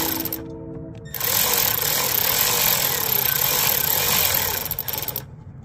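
Milwaukee cordless electric ratchet with a 12 mm socket running for about four seconds, rattling as it spins out a motorcycle's oil drain bolt; it starts about a second in and cuts off sharply near the end.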